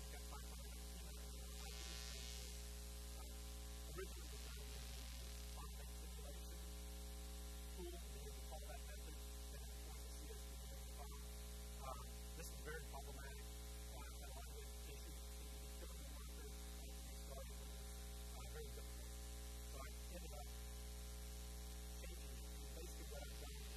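Steady electrical mains hum, a constant low buzz with a ladder of higher overtones.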